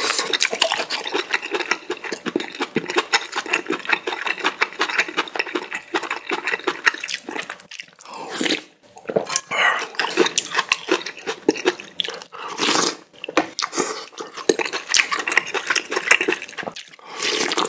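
Close-miked eating sounds: a person rapidly chewing and slurping spicy ramen noodles, wet smacking and clicking, with a few longer, louder slurps about halfway through and near the end.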